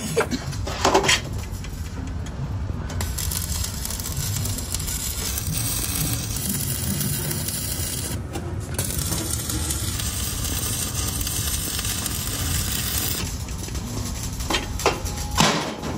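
Stick (arc) welding on steel plate: a steady crackling sizzle from the burning electrode, with a few sharp clicks about a second in and again near the end, and a brief break about halfway through.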